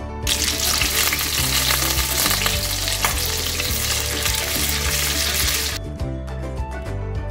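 Sausages sizzling as they fry in butter and olive oil in a stainless steel pan while tongs move them around. The sizzle starts just after the beginning and cuts off about six seconds in, with background music underneath.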